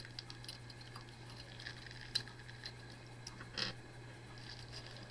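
Faint, scattered small clicks and taps of Beyblade parts being handled and re-fitted to switch the top to its other mode. There is one sharper click about two seconds in and a brief rustle a little later, over a steady low hum.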